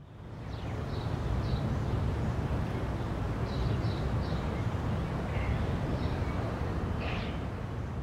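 Steady low hum of distant city traffic, with short high bird chirps scattered over it about a dozen times.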